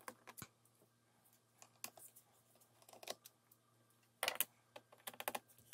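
Faint scattered clicks and ticks of a small screwdriver and tiny laptop screws being handled, with a quick cluster about four seconds in and another a second later.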